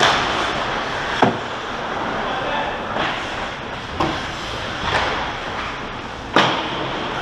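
Ice hockey play close to the net: a steady scrape and hiss of skates on ice, broken by several sharp clacks of sticks and puck. The sharpest clacks come about a second in and near the end.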